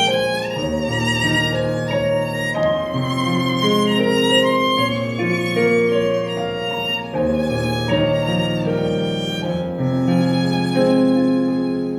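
Live small ensemble music: a violin melody with vibrato over held low bass notes that change every couple of seconds.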